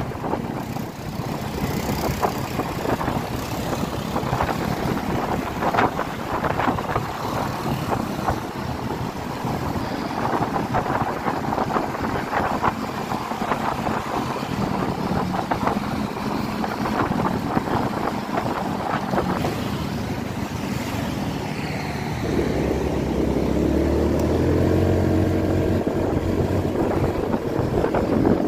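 Motor scooter on the move in city traffic: wind buffeting the microphone over engine and road noise. About three-quarters of the way through, a steadier, louder engine hum comes in and slowly rises in pitch.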